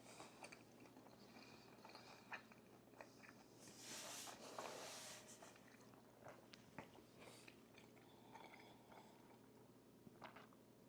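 Quiet close-up mouth sounds of someone biting and chewing food, with scattered small clicks and a louder, crunchier stretch about four seconds in.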